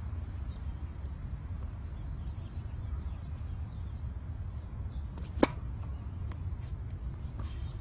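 Tennis racket striking the ball on a serve: one sharp pop about five seconds in, over a steady low rumble.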